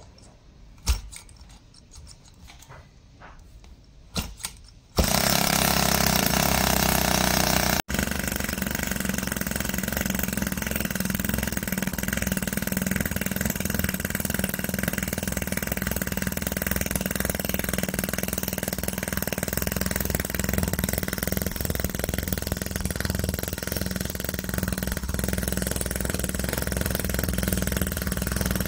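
A few sharp clicks and knocks of handling. Then, about five seconds in, the OKMO H09 Mini Hoglet's 2.1 cc single-cylinder four-stroke petrol model engine is running steadily, starting abruptly and dropping out for an instant a few seconds later.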